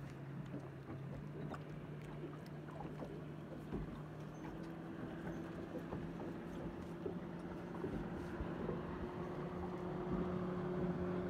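A boat's outboard motor running with a steady low hum, its tone shifting a little higher about halfway through, over a faint wash of water.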